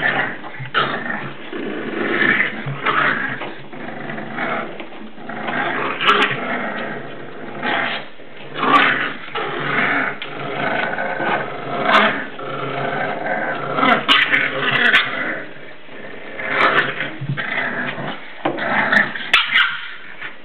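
Seven-week-old English Bulldog puppies growling while they play-fight, a near-continuous string of small, rough growls with sharper, louder bursts scattered through.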